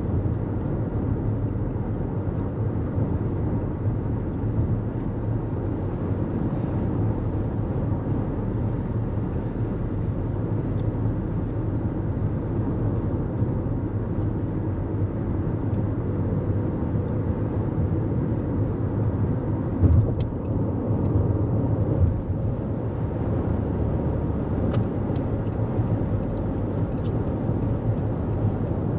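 Steady low road and tyre noise of a 2024 Toyota Corolla Cross cruising at highway speed, with a brief thump about two-thirds of the way through.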